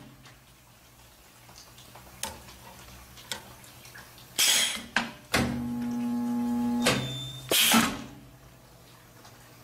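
Miller resistance spot welder running one weld cycle: a short hiss as the electrode arms close on the steel, a steady electrical hum from the welding transformer for about a second and a half while the weld current flows, then another hiss as the arms open.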